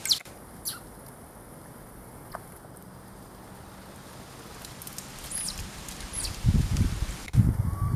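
Young monkey scrambling among dry palm fronds at the water's edge: a few short, high, falling squeaks or chirps, then from about six seconds in, louder irregular low thuds and rustling.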